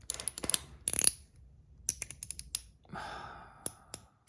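Polished zirconium One Pal slider fidget clicking through its spring-and-ball detents: a quick run of sharp metallic clicks in the first second and a few more about two seconds in, then a brief soft hiss near the end.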